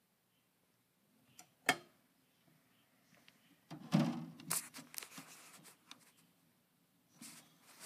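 A sharp click, then a few seconds of rustling and crackling, with a shorter burst of rustling near the end.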